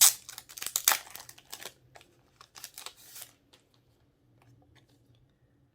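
Packaging crinkling and rustling as photo strips are handled and taken out. The bursts are loudest at the start and again about a second in, then die away after about three seconds.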